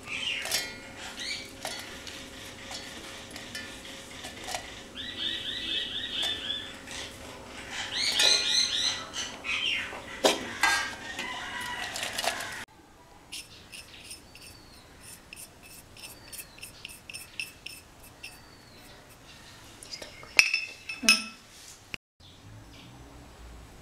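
Stainless steel plates and bowls clinking and scraping as they are handled, with two sharp ringing clinks near the end. Birds chirp in the background.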